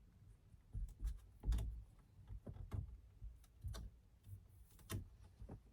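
Irregular clicks and light knocks, with a few dull thumps, the loudest about a second and a half in, from hands working on a quick-release steering wheel as its fitting is finished.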